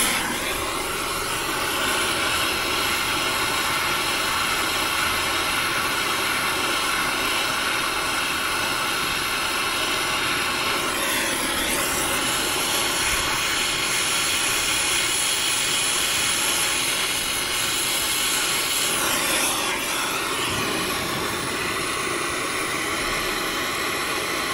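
Brazing torch flame hissing steadily while heating the copper joint of a liquid-line filter drier to sweat it out, its tone sweeping briefly twice.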